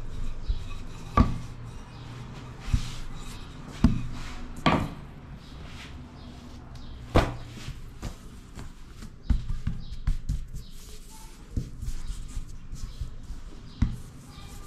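Pizza dough being rolled out with a wooden rolling pin and pressed flat by hand on a tabletop: irregular knocks and thuds of the pin and hands on the table, the sharpest about a second in and around four and seven seconds in, with softer rubbing and rolling between.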